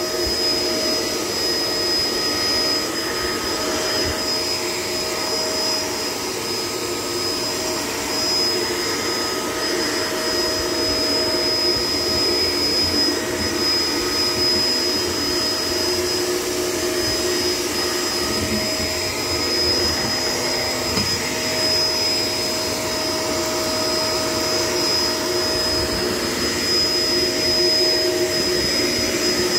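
Shark LA702 Lift-Away upright vacuum cleaner running steadily while vacuuming, a constant motor whine with a high tone over airflow noise, swelling slightly now and then as the cleaner moves.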